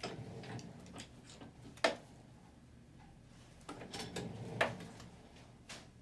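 Small instruments being handled: a few sharp clicks over light rustling, the loudest click about two seconds in and two more in the second half.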